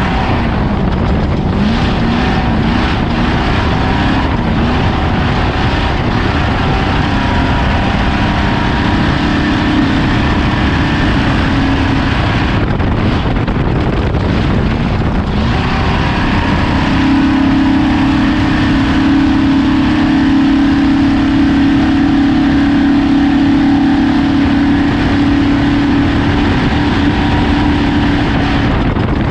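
Off-road race vehicle's engine running hard over a constant rushing noise. The engine note wavers up and down at first, drops away for a few seconds around the middle, then comes back and holds a steady pitch, a little louder, for most of the second half.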